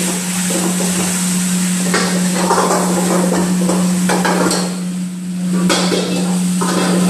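Metal kitchenware clattering, with a ladle knocking and scraping in a wok as vegetables are stir-fried, in a few separate bouts over a steady low hum.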